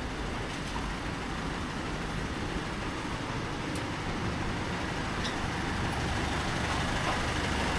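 Street traffic with a heavy vehicle's engine running, the rumble slowly growing louder toward the end.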